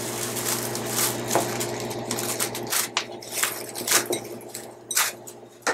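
Plastic cling film crinkling and crackling in irregular bursts as it is peeled back off a glass bowl.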